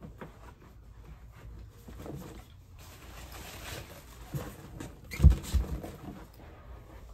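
Rustling, scraping and light clicks of belongings being handled and sorted, with a dull thump a little after five seconds in, followed by a smaller one; the thump is the loudest sound.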